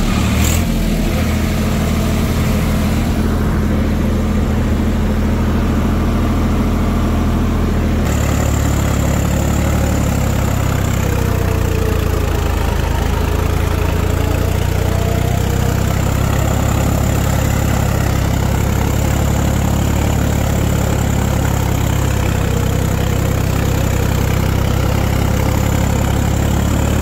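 Swaraj 744 4x4 tractor's three-cylinder diesel engine running steadily under load while pulling an implement through soft, wet sand, with its note shifting about eight seconds in. The engine is being pulled down, its revs dropping from about 1600 to 1400 rpm, which the driver puts down to the brand-new engine not yet being warmed up and the wet river sand.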